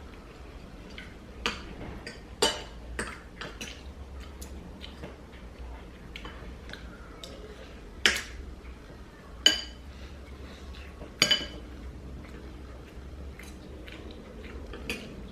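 Cutlery clinking and scraping against a plate while someone eats, in scattered irregular clinks, a few of them much louder in the second half.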